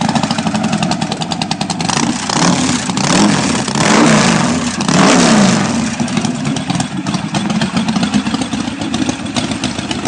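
Feuling W3 motorcycle's three-cylinder W engine running. It is blipped about three times around the middle, its pitch rising and falling with each blip, then it settles back to a steady idle.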